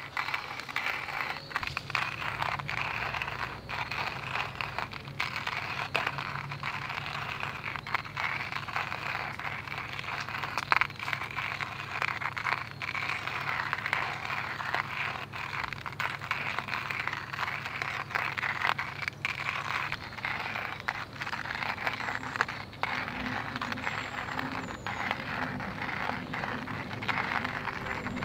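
Keichan-yaki (chicken and vegetables) sizzling in a pan over a campfire: a dense, steady crackle with many small pops.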